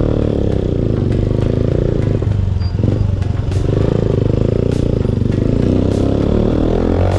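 Sport motorcycle engine running under the rider, its pitch rising and falling as it revs and pulls away in low gear.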